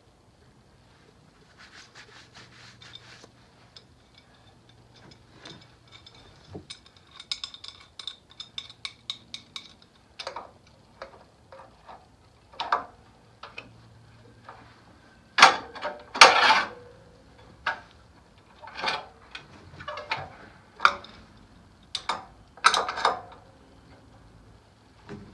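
Hand tools and metal engine parts on a VW Beetle engine clinking, knocking and scraping as the engine is worked on by hand. There is a run of quick clicks about seven seconds in, and the loudest scrapes and knocks come about halfway through and again near the end.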